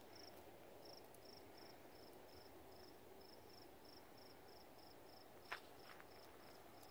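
Faint cricket chirping: short high chirps repeating evenly about three times a second. A single faint click about five and a half seconds in.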